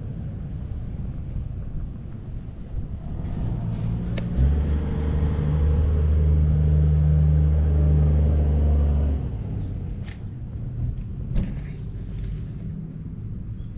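A low engine rumble with a steady pitch swells for about five seconds and then fades, with a few sharp clicks.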